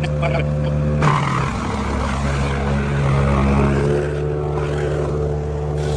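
An engine running steadily at one constant pitch, with a brief unsettled moment about a second in.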